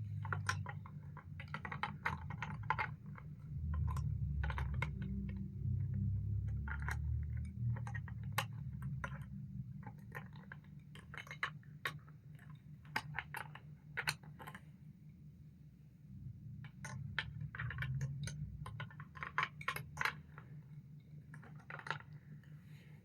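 Plastic Duplo bricks clicking and clattering as they are handled and pressed together, many short sharp clacks at an irregular pace, over a low steady rumble.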